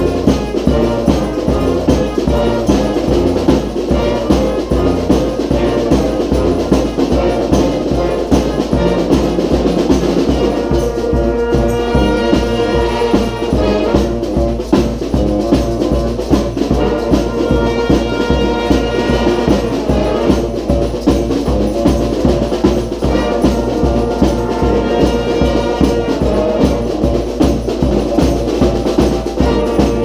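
A street brass band (sousaphone, trombones, trumpets and saxophones over snare and bass drum) playing an up-tempo rock tune together. The drums keep a steady beat throughout, and from about a third of the way in the horns return again and again with loud held chords.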